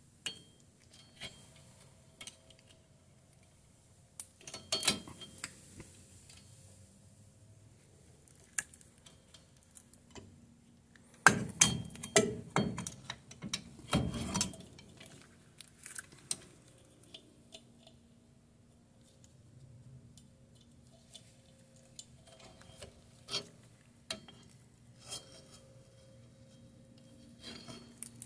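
Metal tools and drum brake parts clinking and knocking as they are handled, with scattered single clicks and a busy run of clattering around the middle.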